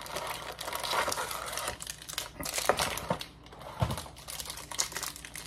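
Plastic snack packaging crinkling and rustling as it is handled, with scattered clicks and a few light knocks.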